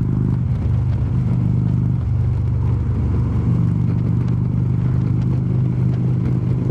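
Harley-Davidson V-twin motorcycle engine running steadily at highway cruising speed, heard from the bike itself, over a steady rush of wind and road noise.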